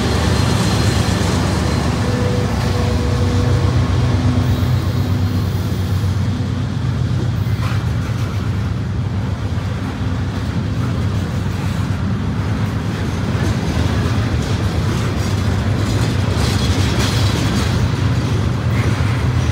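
A diesel freight train passing close by: the trailing locomotive's engine hum fades in the first few seconds, then open-top hopper cars roll past with a steady heavy rumble and occasional wheel clicks on the rails.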